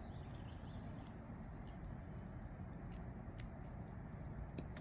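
A few faint, scattered metal clicks from a T6 Torx driver being worked on a small screw in a folding knife, over a steady low room hum.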